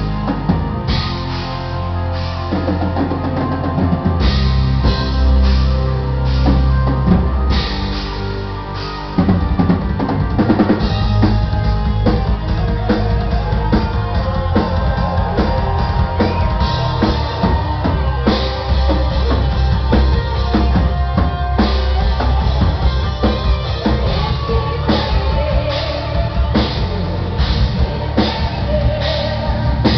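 Symphonic metal band playing live: a driving drum kit with bass drum under distorted guitars and bass, heard through an audience member's recorder. The band gets louder about nine seconds in.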